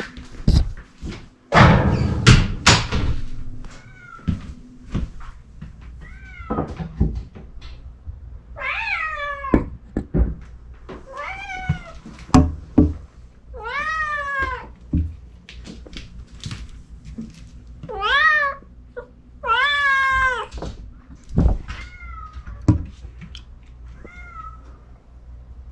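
Chausie kitten meowing loudly and repeatedly, about ten meows that each rise then fall in pitch, some long and drawn out. A few loud knocks and thumps come about two seconds in.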